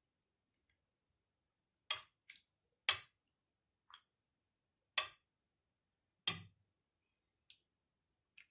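A metal spoon knocking against the side of a pot while stirring soup: a series of short sharp clinks, roughly one a second, some louder than others.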